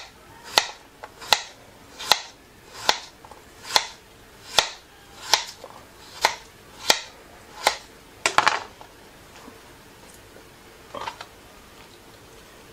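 Kitchen knife slicing a potato on a plastic cutting board: a sharp tap of the blade hitting the board about every three-quarters of a second, eleven or so in a row. A quick cluster of taps comes about eight and a half seconds in, then a single faint tap a little later.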